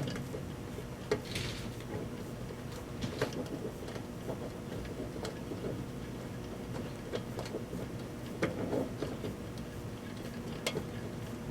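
Microwave oven running with a steady hum, with irregular sharp clicks and ticks over it.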